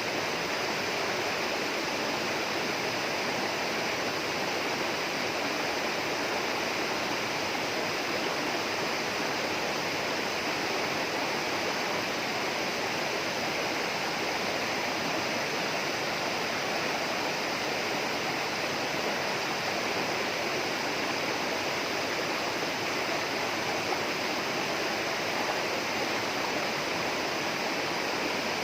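Flowing water rushing steadily, an even unbroken hiss like a rainforest stream or small waterfall.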